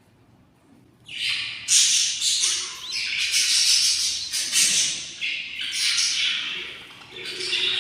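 Budgerigar chicks giving hungry begging calls: loud, raspy squawks that start about a second in and run on in overlapping bursts.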